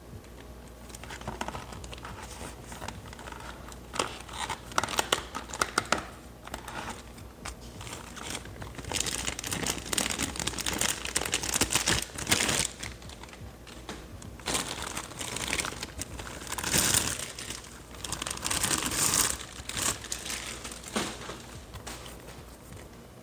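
Plastic packaging crinkling and rustling as an action figure is unwrapped by hand, in irregular bursts with small clicks.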